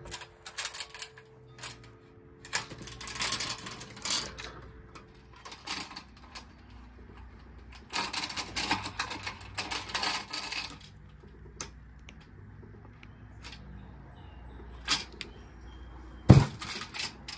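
Light steel hanging chain rattling and clicking against a sheet-metal light fixture housing as it is hooked into the housing's slot, in two spells of quick clicks with scattered single clicks between. A single sharp knock near the end is the loudest sound.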